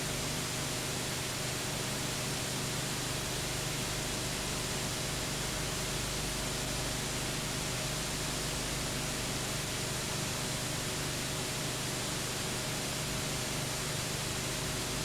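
Steady hiss with a low hum underneath and a few faint steady tones: the noise floor of a transferred silent home movie, with no sound from the scene itself.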